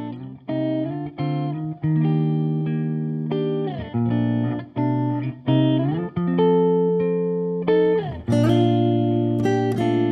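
Background guitar music: slow plucked notes and chords, each left to ring and fade, with a few sliding changes between chords.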